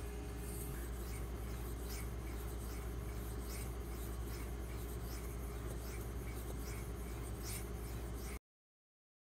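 The 154CM steel blade of a Benchmade Mini Griptilian being stroked across a very hard 10,000-grit Pride Abrasives water stone for a final polish: soft, light scraping strokes, about one to two a second, over a steady low hum. The sound cuts off abruptly near the end.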